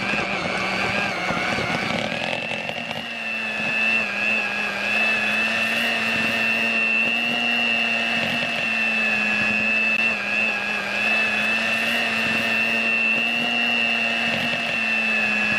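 Electric hand mixer running steadily, its twin beaters churning cream cheese and egg for a cheesecake mixture: a constant motor hum with a high whine.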